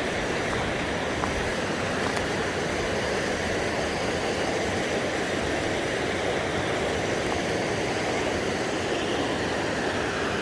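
Steady, even rush of river water running over shoals (rapids).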